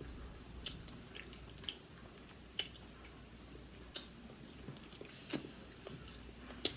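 Close-up eating sounds: chewing with scattered wet mouth clicks and smacks, about eight sharp ones at irregular intervals.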